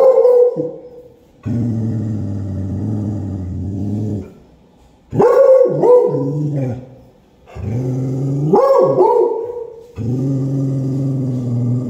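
Beagle baying at a cat outside: a series of long drawn-out calls, some staying low and rough, others rising sharply into a high wavering howl.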